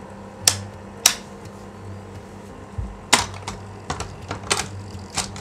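Slide projector working: two sharp mechanical clicks about half a second apart near the start, then a clatter about three seconds in and a run of lighter clicks as the slide-change mechanism moves, over the steady hum of the projector's fan motor.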